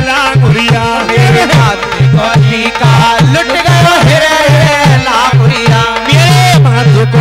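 Languriya folk music played live: a dholak beating a fast, even rhythm with a deep pulse about four times a second, under a wavering keyboard melody and singing. Near the end the pulsing gives way to a held low note.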